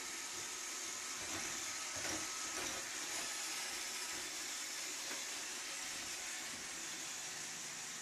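iRobot Roomba 761 robot vacuum running: a steady, high hiss from its suction motor and brushes, with some low rumbling in the first three seconds.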